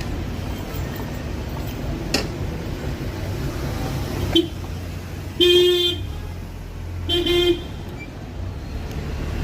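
A vehicle horn honks: a short tap, then two honks, the first about half a second long and the second shorter, over the steady rumble of street traffic.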